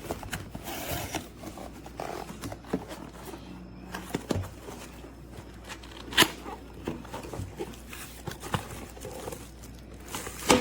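Packaging of a kitchen knife set being handled and opened: rustling and tearing with scattered light clicks and knocks, a sharper click about six seconds in.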